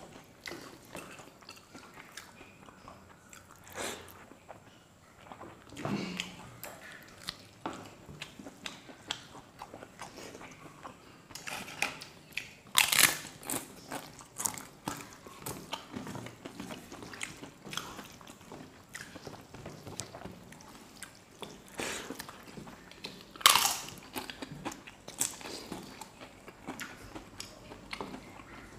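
Crisp papad (papadum) being bitten and crunched, with chewing in between: short crackly crunches scattered throughout, with a loud crunch about 13 seconds in and another about 23 seconds in.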